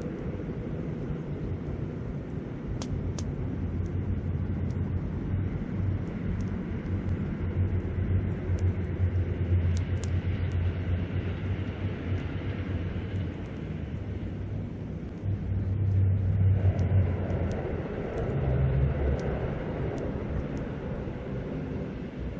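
Campfire crackling with scattered small pops, over wind rumbling on the microphone and the steady rush of a river. The wind rumble gusts louder about two-thirds of the way through.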